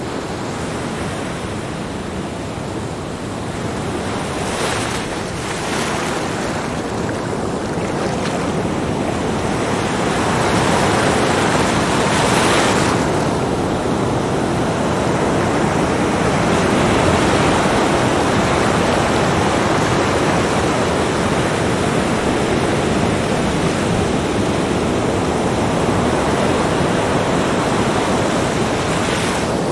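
Small surf breaking and washing up a sandy beach: a continuous rushing hiss that builds over the first ten seconds or so, with a few brighter washes as waves spill onto the sand, then holds steady.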